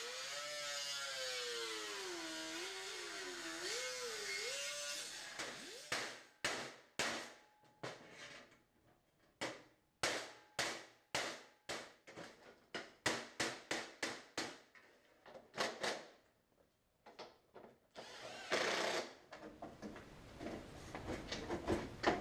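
A power tool cutting fiberglass body panel: its whine climbs, then drops and wavers as it bites under load. Then comes a run of sharp, quickly fading strokes, about two or three a second, and a rougher stretch of tool noise near the end.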